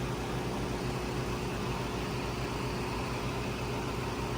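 Outdoor heat pump equipment running steadily: fan noise over a constant compressor hum with a few steady tones.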